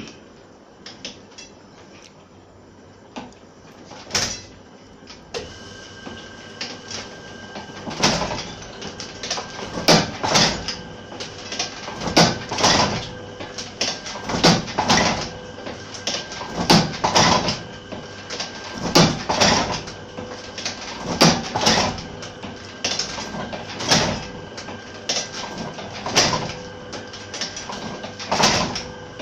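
Fifty-year-old platen letterpress printing machine running. A few light clicks come first, then about five seconds in a steady hum sets in, and the press clanks in an even rhythm, about once every two seconds, with each printing cycle.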